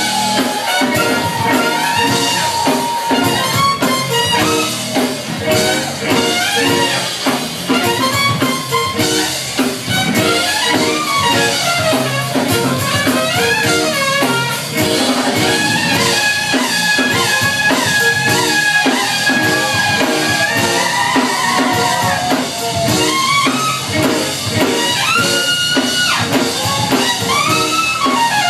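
Live jazz-funk band playing, with a trumpet lead over electric bass and drum kit. The trumpet plays running melodic lines and holds one long high note for about five seconds around the middle.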